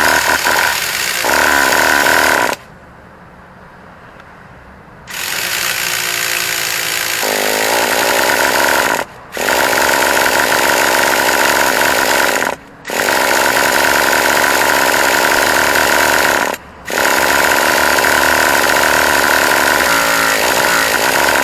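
Small 2.5 cc nitro engine of an RC truck being spun over by a starter in repeated runs of a few seconds each, with brief breaks between them. The engine never catches: a failed start.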